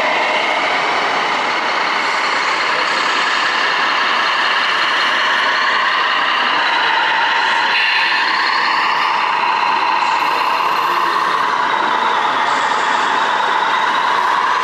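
Electronic diesel-engine sound from an RC model truck's sound module, played through a small speaker, its pitch rising and falling as the truck drives.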